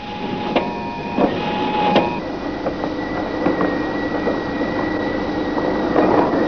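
Mechanical whirring and clicking from running laboratory apparatus: irregular clicks at first, then steady humming tones joined about two seconds in.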